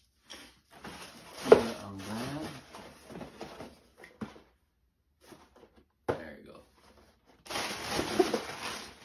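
Packaging being handled: crinkling and rustling of a plastic mailer bag and a cardboard box being picked up, with a sharp knock about one and a half seconds in and a few lighter knocks, and a second burst of crinkling near the end as the box is drawn out of the bag.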